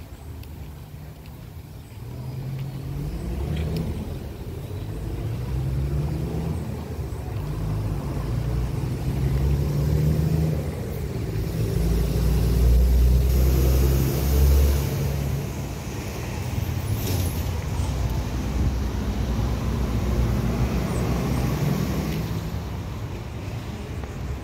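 Road traffic going by: car and truck engines and tyre noise, building to its loudest a little past the middle and then easing slightly.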